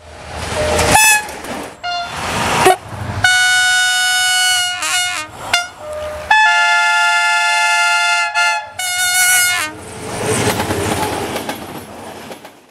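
Diesel locomotive horn sounding several blasts over the noise of a passing train: two short toots, then two long blasts of about one and a half and two and a half seconds, and a shorter one just after. The train's rumble carries on after the horn stops.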